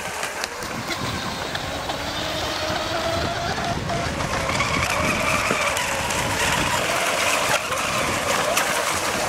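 Several radio-controlled racing catamarans running at speed together. Their motors give a whine that slowly rises and falls in pitch as they pass, over a steady hiss.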